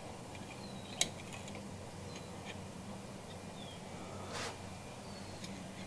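A single sharp click about a second in as the small spring is set into the plastic recoil starter pulley, with a brief soft rustle of handling about four seconds in. Under it runs a steady low hum, and faint bird chirps sound in the background.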